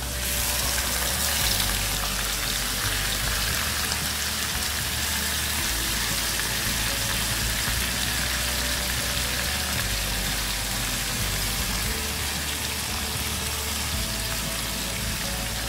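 Yogurt-marinated chicken sizzling in hot oil in a wok: a steady frying hiss, loudest in the first couple of seconds just after the pieces go into the pan, then settling to an even sizzle.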